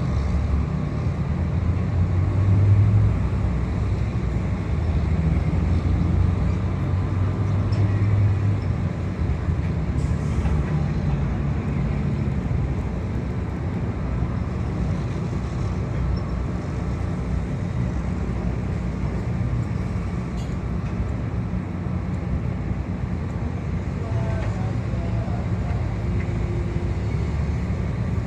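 Steady low engine rumble, heaviest in the first nine seconds and a little lighter after that.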